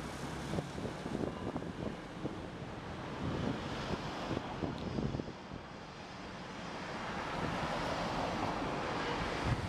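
Traffic noise with wind buffeting the microphone; the sound of a passing vehicle grows steadily louder over the second half.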